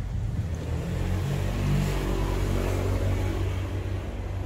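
A motor vehicle passing, its engine rumble swelling to a peak about two seconds in and then easing off.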